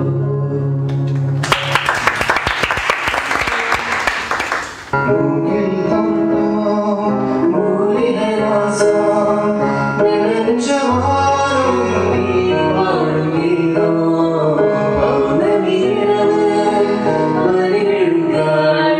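A short stretch of music gives way to a burst of audience applause lasting about three seconds. Then a woman and a man sing together into microphones over acoustic accompaniment.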